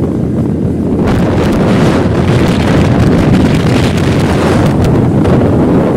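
Loud wind buffeting the microphone of a phone filming from a moving two-wheeler on rain-wet roads: a steady rushing roar that turns brighter and hissier about a second in.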